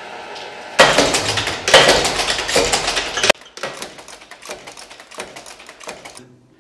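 Power punch press stamping alarm-clock hands from a metal strip: the motor hums, then a rapid, loud metallic clatter of press strokes starts suddenly about a second in and carries on, more quietly from about halfway.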